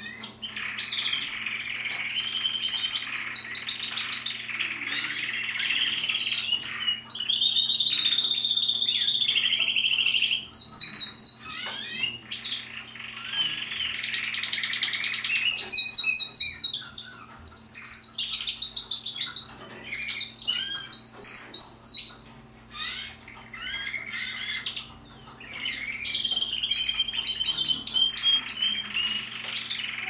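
Caged red canaries singing: long rolling trills and rapid runs of repeated notes, phrase after phrase with brief pauses between. A faint steady hum runs underneath.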